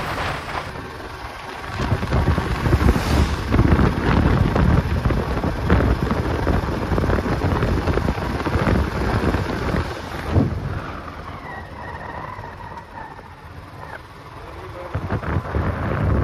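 Wind buffeting the microphone on a moving motorcycle, over the engine and road noise. The rumble is heavy for most of the first ten seconds, eases for a few seconds, then builds again near the end.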